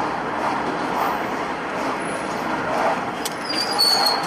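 Steady road and engine noise of a car driving in traffic on a multi-lane road, with a few light clicks and a short high squeal a little after three seconds.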